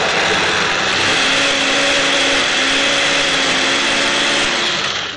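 Electric food processor running steadily, its blade chopping a coarse, raw kibbeh mixture of chickpeas, bulgur and grated pumpkin; the motor stops near the end once the mix is minced through.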